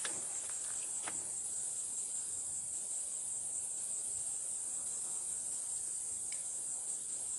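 Steady, high-pitched insect chorus, with a couple of faint clicks in the first second.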